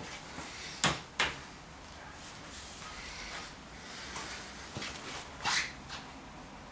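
Two sharp wooden knocks in quick succession about a second in, as the bench of a wooden picnic table is handled. A brief scuff follows near the end.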